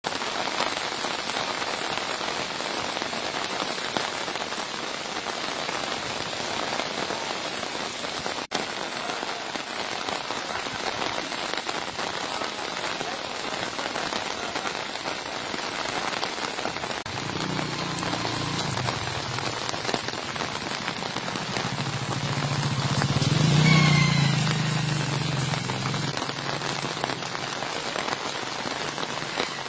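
Steady rain falling, a continuous hiss. About two-thirds of the way in, a motor vehicle approaches, grows louder, passes close near the end and fades away.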